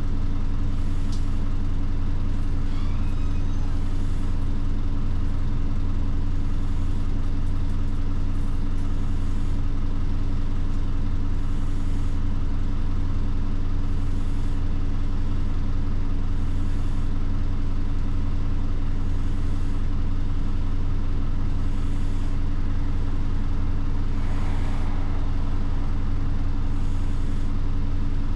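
Steady low hum of a route bus's diesel engine, heard from inside the passenger cabin. A faint high pulse comes back about every two and a half seconds, and there is a short rustle near the end.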